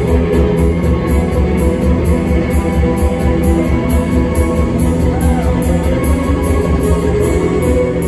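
Live rock band playing: two electric guitars, bass guitar, keyboard and a drum kit, with a steady beat of about four cymbal strokes a second.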